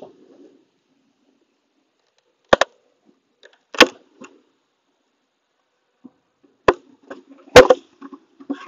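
Beekeeper's hive tool prying and knocking at wooden beehive boxes and frames: a handful of sharp wooden clacks and cracks with quiet between, the loudest about three-quarters of the way through.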